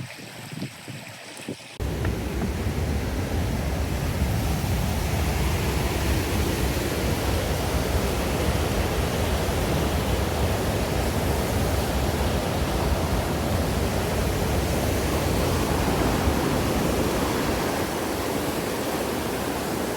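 Steady rushing of a waterfall's flowing water, starting abruptly about two seconds in and holding at an even level.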